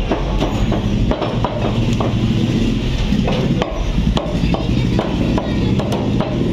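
Cleaver blade knocking on a wooden chopping block as skinless chicken breast is cut into pieces, irregular sharp knocks a few times a second over a steady low background rumble.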